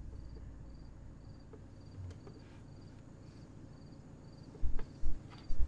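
A cricket chirping steadily, short high chirps about twice a second, over a faint low rumble. A few dull bumps near the end.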